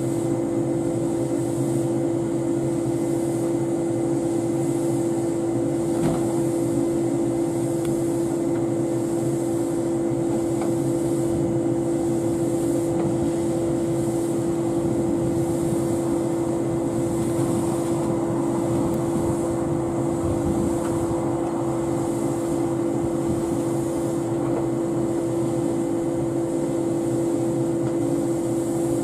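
A stationary Joshin Electric Railway 700 series electric train (a rebuilt JR 107 series) with its onboard equipment humming steadily, a low tone with a fainter high whine above it. A single faint click comes about six seconds in.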